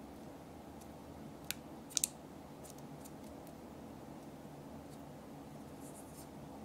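Fingers handling a small plastic slime barrel: a few sharp light clicks and taps against the plastic, the loudest a quick pair about two seconds in, with fainter ticks and soft scratching over a steady low hum.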